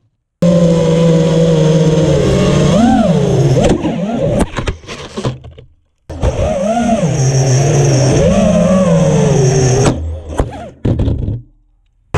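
FPV quadcopter's brushless motors and propellers whining, the pitch rising and falling with the throttle. It happens in two stretches that each start abruptly; each one ends in a few scattered knocks as the quad crashes and the motors die away.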